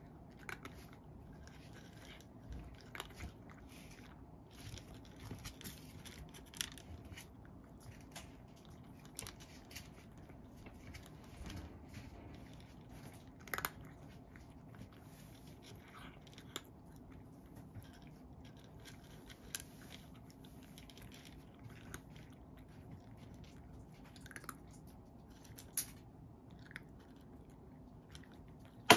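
A cat crunching dry kibble from a wooden bowl: irregular crunches, a few louder than the rest.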